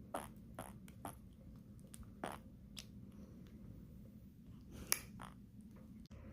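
Newborn baby making short fart-like noises: a scattered series of brief pops, the loudest about five seconds in.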